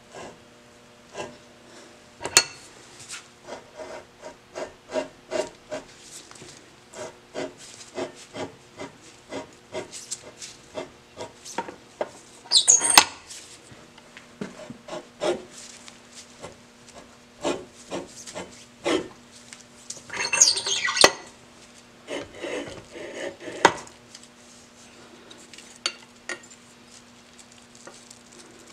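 Keyway broach being pushed through a pulley half with a hand arbor press: a run of sharp metallic ticks, about two a second, as the broach teeth take their cuts. A few louder scraping bursts come midway and later on.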